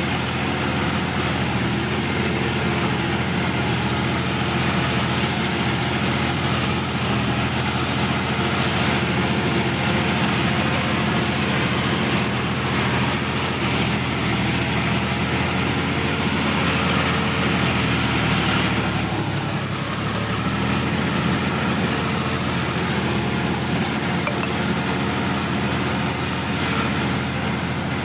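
Sonalika DI-50 RX diesel tractor engine running steadily under way, heard from the driver's seat. About two-thirds of the way through, the engine note dips briefly, then picks back up.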